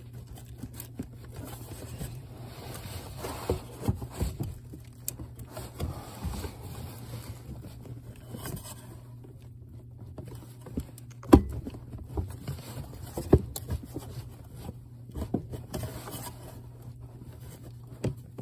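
Scraping, clicking and knocking of the truck's powertrain control module (PCM) being worked by hand out of its firewall mount, with a sharp knock about eleven seconds in, the loudest, and another about two seconds later. A steady low hum runs underneath.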